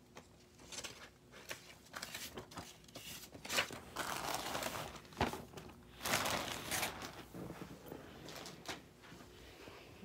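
Paper manual pages and clear plastic wrapping rustling and crinkling as they are handled, in irregular bursts with a few sharp clicks, loudest about four and six seconds in.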